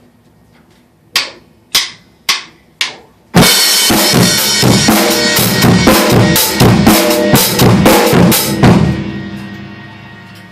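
Acoustic drum kit: four sharp single hits about half a second apart, then about five seconds of loud, fast playing across the drums and cymbals, after which the cymbals ring out and fade.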